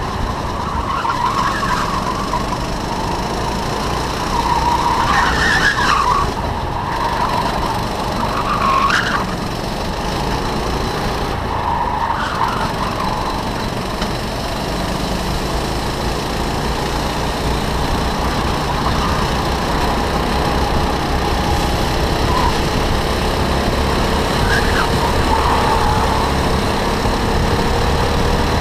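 Racing go-kart engine running at speed under load, heard onboard, its note rising and falling through the corners. There are a few short tyre squeals in the first half, and another kart's engine climbs in pitch alongside near the end.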